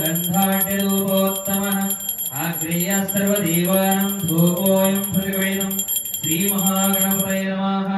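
A man chanting Sanskrit puja mantras in long, sung phrases held on a level pitch, breaking for breath about every two seconds. A small hand bell rings rapidly and continuously underneath and stops shortly before the end.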